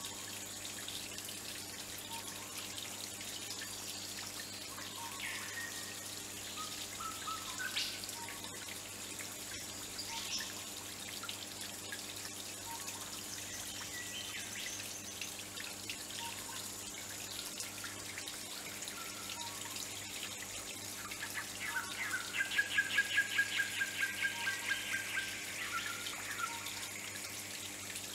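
Steady trickle and drip of a small pond waterfall running over rocks, with scattered bird calls. About three quarters of the way through comes a louder bird call, a rapid run of repeated notes lasting a few seconds.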